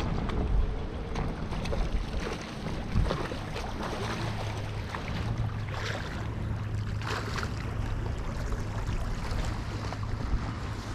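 Wind buffeting the microphone by open water, with a steady low hum through the middle and a few light clicks and knocks.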